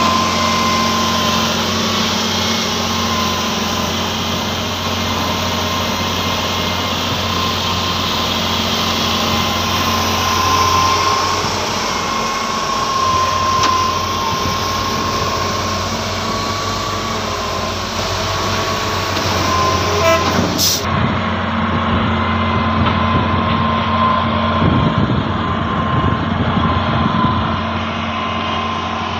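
Heavy Hitachi hydraulic excavators running steadily while digging and loading sand: a continuous diesel engine hum with a steady high whine over it.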